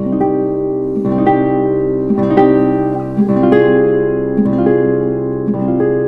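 Background music: plucked strings playing a gentle melody, a new note about every half second to a second.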